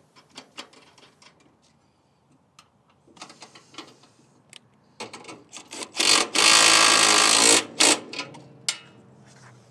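Cordless driver spinning a supplied fastener into a grille mounting bracket on the radiator core support. A few light clicks and short trigger pulses come first, then the motor runs steadily for about a second and a half as the bolt drives home, with one more short burst just after.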